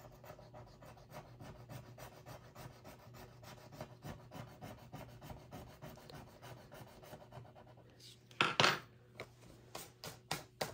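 Fast, faint scratching of a scratch-off field on a paper savings-game card being rubbed free, a steady run of quick strokes for about eight seconds. Near the end comes one short louder swish, then a few light taps.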